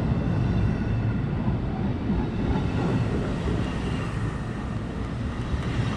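NJ Transit bilevel commuter coaches rolling past the platform: a steady rumble of steel wheels on the rails with irregular clatter.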